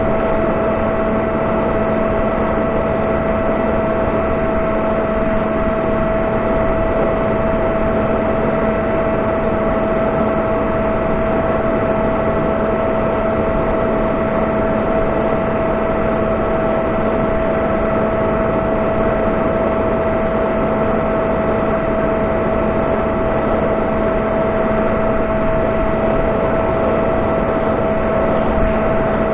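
Electric motor and propeller of an S800 Reptile flying wing, heard from on board, running at a steady throttle. It gives an even, unchanging whine over a constant rush of wind on the microphone.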